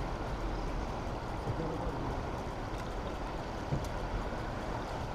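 Steady rushing noise of the turbulent water released below the dam, with a light knock about two-thirds through.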